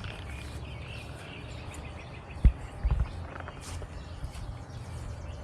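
Wind rumbling on the microphone, with two low thumps about half a second apart midway through.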